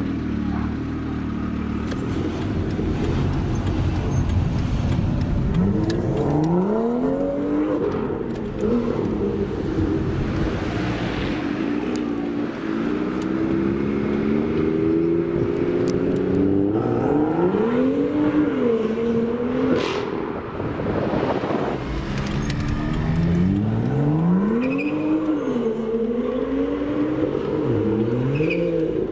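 BMW M2's turbocharged straight-six exhaust, rumbling low at first and then revving up and dropping back several times as the car accelerates away.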